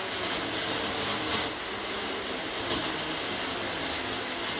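Countertop blender running steadily, blending a pink fruit drink.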